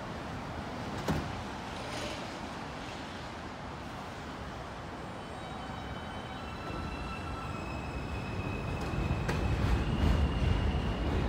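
New York City Subway R160B car with Alstom propulsion: its doors close with a knock about a second in, then the train pulls out, its traction motors whining and rising in pitch as it speeds up and leaves. A low rumble grows louder near the end.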